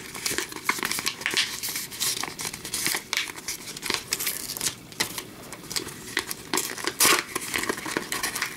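Paper envelope being handled and torn open: irregular crinkling and rustling of paper with small tears, the loudest rip about seven seconds in.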